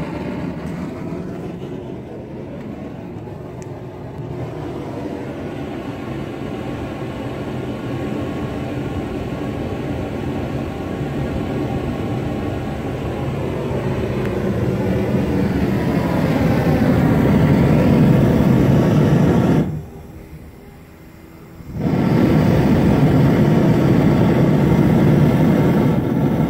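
Homemade propane sidearm forge burner, built from iron pipe fittings with a 0.9 mm MIG tip as its gas jet, burning with a steady rush of gas and flame that grows louder as the gas pressure is turned up. Near the end the sound drops away for about two seconds, then comes back at full strength.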